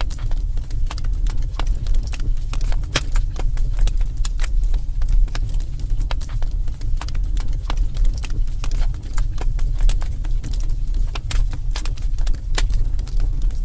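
Wood fire burning in a fireplace: a steady low rumble with many irregular crackles and pops.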